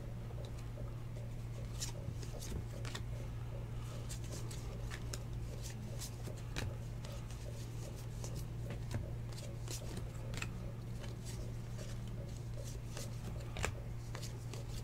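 A stack of 2019 Panini Legacy football trading cards being flipped through by hand, card sliding over card with irregular soft clicks and rustles, over a steady low hum.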